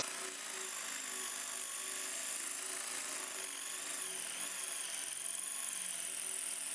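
Cordless 12V drill running steadily in high gear, boring a 10 mm carbide masonry bit into a solid cement block, with a faint high whine over the bit grinding.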